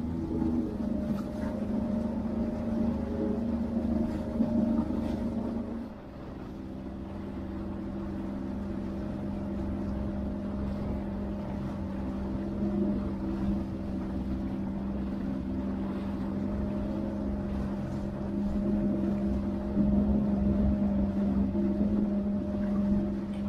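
Jet ski engine running steadily at low speed. Its note dips in pitch and loudness about six seconds in as the throttle eases, then holds steady, getting somewhat louder near the end.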